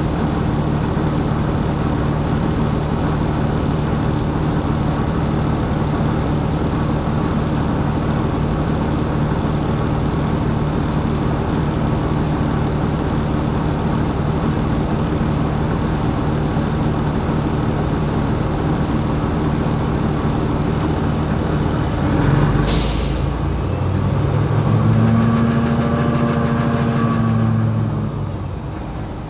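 Diesel engine of a New Flyer XD60 articulated bus, heard from inside, running steadily under way. About 22 seconds in comes a short sharp hiss of air from the brakes. The engine note then rises and falls in pitch for a few seconds before dropping away near the end.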